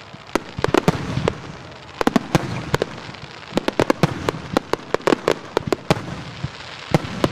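Fireworks display: many sharp bangs from shots bursting overhead, coming in quick clusters with brief lulls between them.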